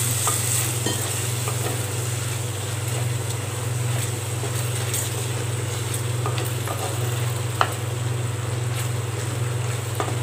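Wooden spatula stirring and scraping wet onion-tomato masala in a clay pot, with small scattered knocks against the pot and one sharper knock about three quarters of the way through. The masala sizzles steadily over a constant low hum.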